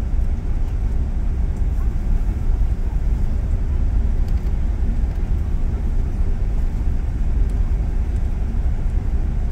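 Steady low rumble inside the cabin of an Airbus A380 on the ground before takeoff, heard from the main deck.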